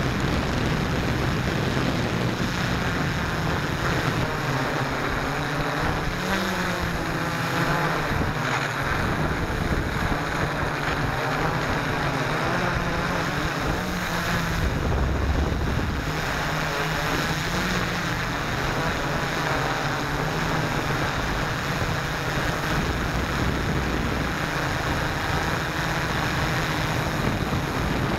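Hexacopter's electric motors and propellers humming steadily, the pitch shifting slightly up and down as the throttle changes, heard through the onboard camera's microphone with stiff wind rushing over it.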